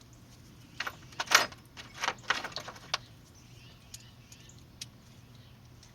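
Metal sockets clinking and rattling against each other as they are sorted through to find one that fits, a cluster of clinks in the first three seconds, then a few scattered ticks.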